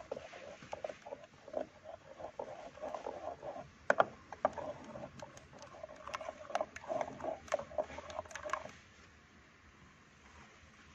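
Wooden stick stirring a liquid chemical in a plastic tub, scraping and knocking against the tub's sides in quick irregular strokes. The stirring stops about two seconds before the end.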